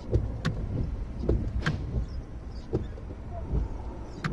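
The PT Cruiser's front windshield wiper motor is running, with the blades sweeping across the glass. There is a steady low hum and a sharp click or knock every half second to a second.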